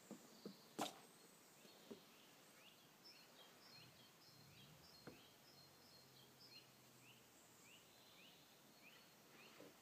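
Quiet open-air ambience with a small bird faintly repeating short, descending chirps, about two a second, from a couple of seconds in. A single sharp knock comes about a second in.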